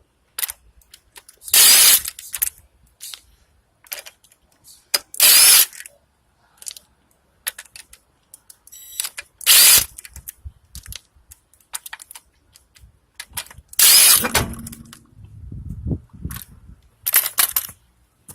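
Hand ratchet wrench clicking in short runs of about half a second, five times, with small taps and ticks of tools on the suspension between them and a lower clunk just after the fourth run, as bolts on a VW Jetta's rear shock mount are worked.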